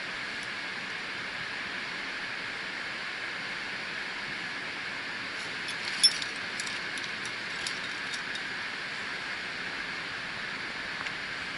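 Climbing hardware on a harness clinking: one sharp metallic click about six seconds in, then a few lighter jingles over the next two seconds, over a steady hiss.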